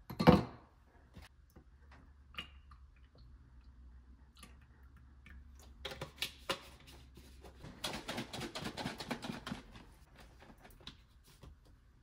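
A sharp thump, then scattered light clicks and knocks, with a fast run of rapid clicking lasting about two seconds in the second half.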